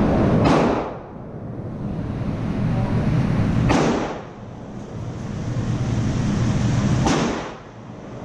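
Three gunshots about three seconds apart, each followed by a brief drop and slow return of the background as the recorder's gain recovers.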